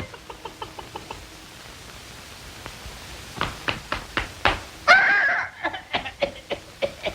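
A run of sharp knocks and clicks, with a brief, loud pitched sound about five seconds in.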